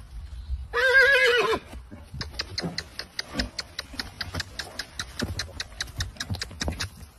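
A stallion whinnies once, a loud wavering call of under a second, about a second in. Then comes a quick, uneven run of sharp hoof clicks and thuds on the ground as the horse moves and bucks.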